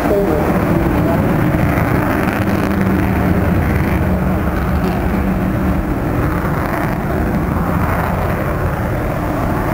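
Loud, steady jet noise from the four Rolls-Royce Olympus engines of the Avro Vulcan bomber XH558 during a display pass.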